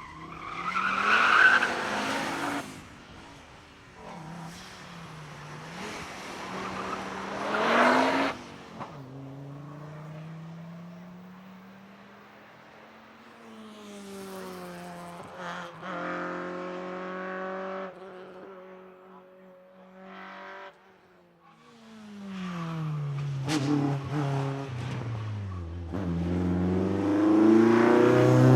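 Cars' engines accelerating hard, each run's pitch climbing through the gears and dropping at the changes, with loud close passes at the start, about eight seconds in and near the end.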